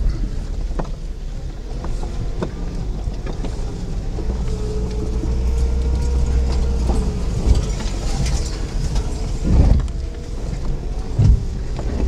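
Suzuki 4x4 crawling over a rocky trail, heard from inside the cabin: a steady low engine rumble with a wavering whine, and scattered knocks and rattles of the body and suspension over stones. Two heavier thumps stand out, about two thirds of the way through and again near the end.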